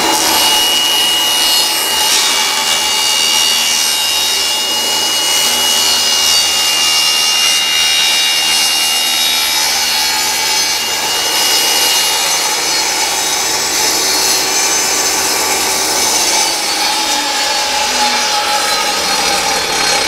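RIDGID R45171 15-amp compact table saw running steadily, its 10-inch blade ripping a thin sheet of veneered plywood: a steady motor whine under the cutting noise.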